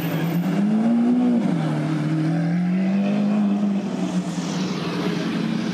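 Lamborghini Centenario's V12 engine pulling away under throttle: the note rises, drops sharply about a second and a half in, climbs again, then fades as the car moves off.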